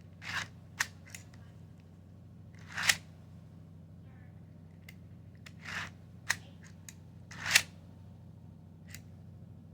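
Plastic parts of a 3D-printed hidden blade being handled: a few short sliding swishes, the loudest ending in a sharp click, with smaller clicks in between.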